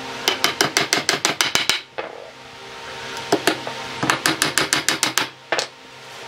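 Hammer nailing pine pallet slats: two quick runs of light, sharp blows, about six a second, with a pause between them and a few single strikes.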